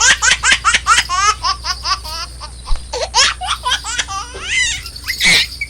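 High-pitched laughter in rapid, repeated bursts that slow and thin out toward the end, with a louder shriek just before it stops.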